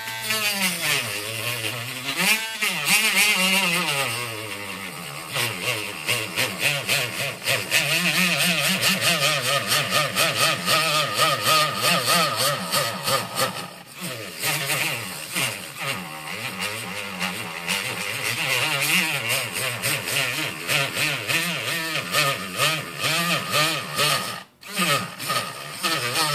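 Harbor Freight Drill Master mini rotary tool cutting a plastic sheet with a cutting wheel: a grinding rasp over a motor whine whose pitch keeps sagging and recovering as it bogs down under the load, a sign of a weak, underpowered motor. The sound drops out for a moment about two seconds before the end.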